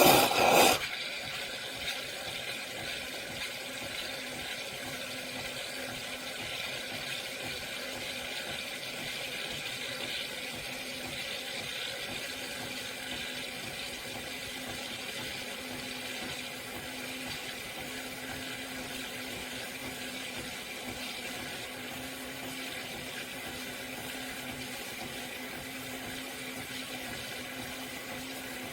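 Espresso machine running with a steady watery hiss over a faint low hum, after a brief loud burst at the start.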